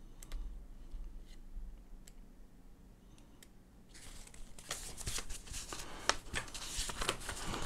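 Paper instruction booklet being leafed through, with a few faint page flicks, then louder rustling and crinkling of paper from about four seconds in as the booklet is opened out and pressed flat on a desk.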